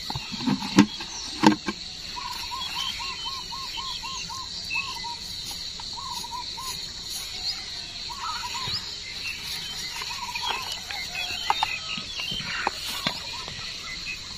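Steady high-pitched chirring of crickets, with a bird calling a quick run of about eight repeated notes about two seconds in and a few more calls later. Near the start, two sharp knocks as the plastic bucket lid is pried off, then faint handling of the nylon mesh shrimp trap.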